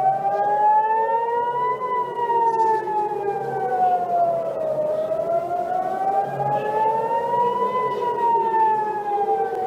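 Emergency warning siren wailing, its pitch sliding slowly up and down, one full rise and fall about every six seconds.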